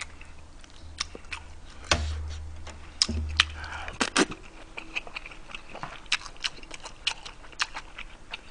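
Close-miked eating sounds: wet chewing and lip smacks with many short sharp clicks, and a slurp from a spoonful of kimchi stew about three and a half seconds in.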